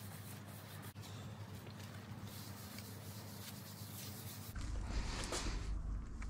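Cloth wiping over a surfboard's surface, faint rubbing strokes as it is cleaned before painting. About four and a half seconds in, the sound changes to a louder low rumble with a few brief handling noises.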